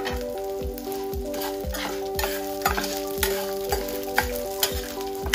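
A slotted spatula stirs and scrapes lentils, dried chillies, shallots and coconut pieces frying in a stainless-steel pan, with a light sizzle and irregular scrapes. Background music with a steady beat and a melody plays over it.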